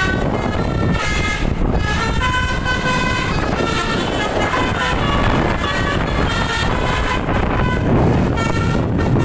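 Telolet horn on a bus: a multi-tone musical air horn playing a quick run of short notes that jump in pitch one after another, over a steady low rumble of engine and road noise.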